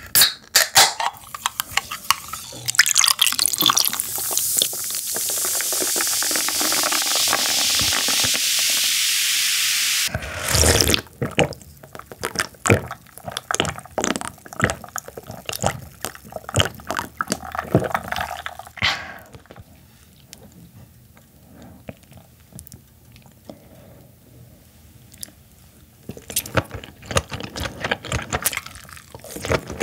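A soda can snapped open, then sparkling soda poured into a glass with a steady fizz that builds for about six seconds and stops suddenly. Sipping and gulping follow, and near the end there is chewing of steamed baby squid.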